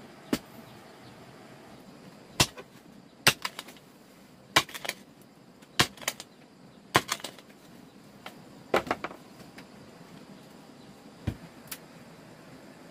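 A series of sharp knocks, about a dozen, irregularly spaced roughly a second apart, some coming in quick pairs or threes.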